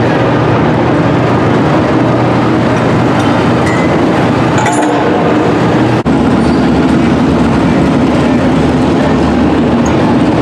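Loud, steady engine noise from pulling vehicles in the arena, with a brief dropout about six seconds in.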